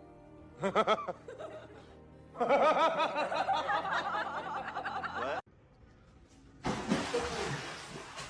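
Background music with a person laughing in repeated bursts. The laughter stops abruptly about five seconds in at a cut, and a new, noisier sound begins shortly after.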